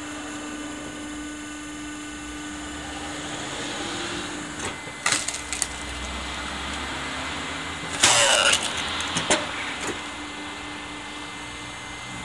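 Electric log splitter running with a steady hum as its blade presses down into a log. There are sharp knocks about five seconds in, and the wood cracks and splits loudly about eight seconds in.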